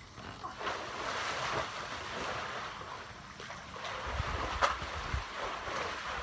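Pool water sloshing and lapping in an above-ground pool, with wind rumbling on the microphone and a single sharp knock about four and a half seconds in.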